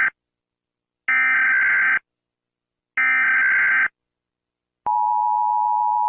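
Emergency Alert System SAME header: the tail of one burst and two more screechy digital data bursts, each about a second long with short gaps between them. About five seconds in, the steady two-tone EAS attention signal starts.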